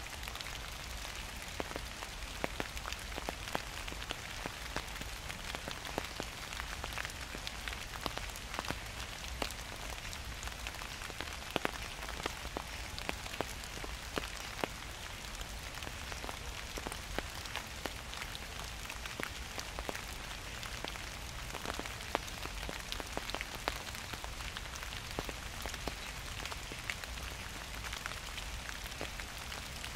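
Gentle rain falling steadily, with many individual drops ticking close by over an even hiss.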